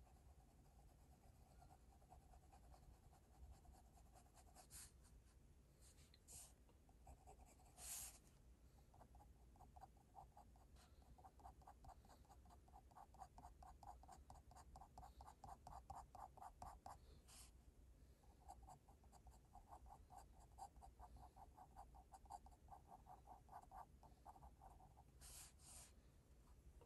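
Graphite pencil scratching on drawing paper in long runs of quick, repeated short strokes as eyelashes are drawn and shaded. A few sharp clicks come between the runs, and a faint steady tone is heard in the first few seconds.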